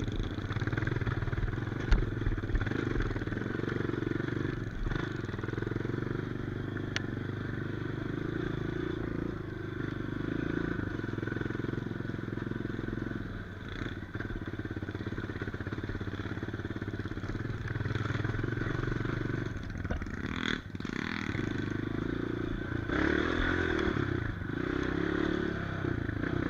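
Dirt bike engine running continuously, its revs rising and falling, with a short drop about twenty seconds in.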